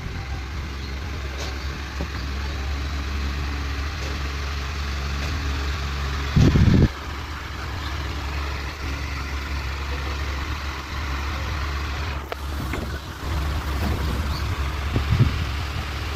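Homemade table fan built from a 12 V DC CPU fan, running with a steady low hum and the hiss of moving air. There is a loud thump about six and a half seconds in, and lighter knocks later.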